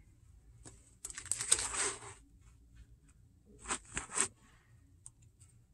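A rustling, scraping sound lasting about a second, then three quick clicks in a row a couple of seconds later.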